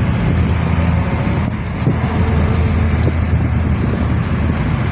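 Road noise heard from inside a moving car's cabin: a steady low engine and tyre rumble with an even hiss.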